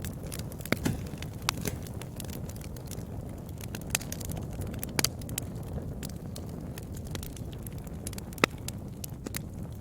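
Wood fire crackling, with irregular sharp pops and snaps over a steady low rumble; the loudest pop comes about eight and a half seconds in.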